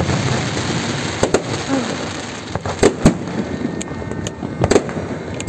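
Aerial fireworks shells bursting overhead: sharp bangs at irregular intervals, some in quick pairs, over a continuous hiss.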